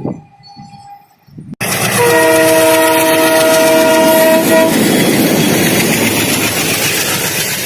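Indian Railways diesel freight locomotive sounding its horn, a chord of several tones held for about two and a half seconds, over the loud rumble and wheel noise of the passing train. The train noise cuts in suddenly about a second and a half in and eases off near the end.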